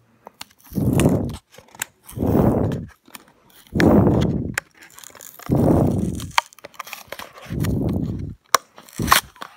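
Plastic blister of a Matchbox toy-car card being squeezed and crunched by hand as the cardboard backing is torn open to pop the car out: five rustling crunches about two seconds apart, with a few sharp clicks near the end.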